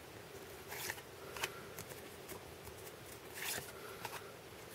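Paper trading cards being flipped and slid through the hands: a few faint, short swishes.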